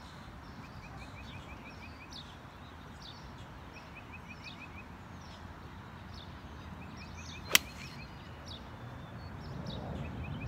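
A golf iron strikes a ball once, a single sharp crack about seven and a half seconds in. Birds chirp with short repeated trills throughout over a steady outdoor background.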